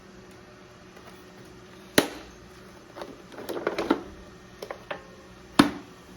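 Sharp knocks and clicks of a plastic robot vacuum being handled: a loud knock about two seconds in, a quick clatter of small clicks a little later, and another loud knock near the end.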